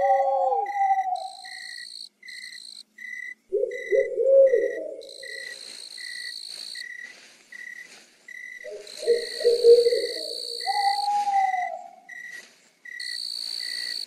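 Night-time nature ambience track: an insect chirping steadily about twice a second, a higher trill that switches on and off, and low calls twice, about four seconds in and again near ten seconds.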